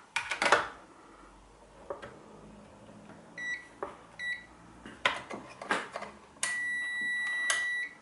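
A digital multimeter's continuity buzzer beeping at a steady high pitch as a shower's pressure-switch micro switch is pressed closed: two short beeps about three and a half and four seconds in, then a long continuous tone from about six and a half seconds, the sign that the switch is making contact. Scattered clicks and taps from handling the switch and test clips.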